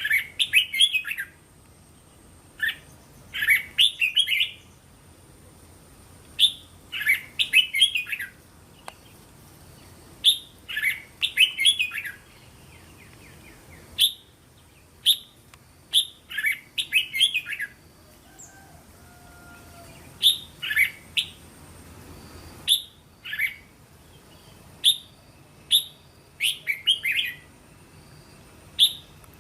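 Red-whiskered bulbul singing: short, bright phrases of several quick notes, repeated every two to three seconds.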